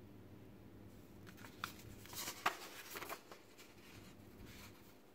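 A cluster of light clicks and rustles about one to three seconds in, from hands handling a small robot servo motor and plugging its cable into the circuit board.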